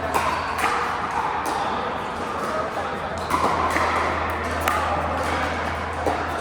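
Pickleball paddles hitting the plastic ball, sharp pops at irregular intervals of about one a second, over a steady low hum.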